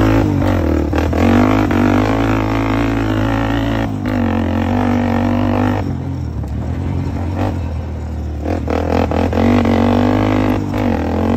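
Honda TRX400EX ATV's single-cylinder four-stroke engine running under throttle as the quad is ridden, just after a cold start. The engine note drops briefly about four seconds in, and again for a couple of seconds from about six seconds, as the throttle eases off, then picks back up.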